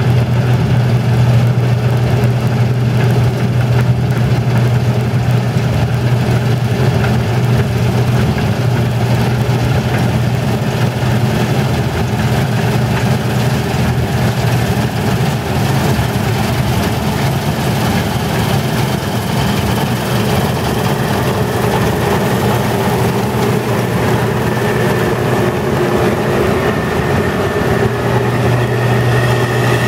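Case IH 2388 grain combine's diesel engine and threshing machinery running loud and steady as the combine cuts and threshes wheat, drawing close and passing by.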